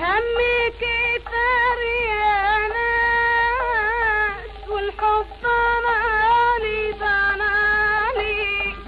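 A woman singing a long wordless, ornamented melisma in a traditional Iraqi song. The voice slides up at the start, then wavers and turns around held notes, with a few short breaks between phrases.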